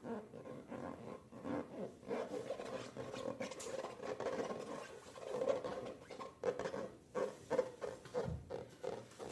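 Slime being squished and kneaded by hand: irregular sticky squelching and crackling, turning into sharper separate pops in the last few seconds.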